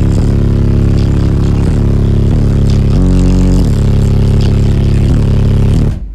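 Three Sundown Audio ZV5 15-inch subwoofers in a sixth-order wall box, wired to about 0.33 ohm, playing a rap song's bassline very loudly, heard from inside the vehicle's cab. The bass stops suddenly near the end.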